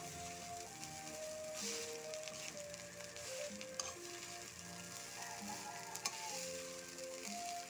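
Garlic fried rice sizzling as it is stirred and tossed in a metal wok with a spatula, the spatula clicking against the pan twice, about four and six seconds in. A melody plays faintly underneath.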